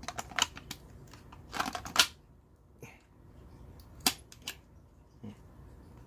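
Hard plastic clicks, scrapes and knocks as a DeWalt DCA1820 battery adapter is pushed and worked against the battery socket of an 18-volt DeWalt tool, a stiff fit that won't just slide in. The loudest knock comes about two seconds in, with a sharp single click about four seconds in.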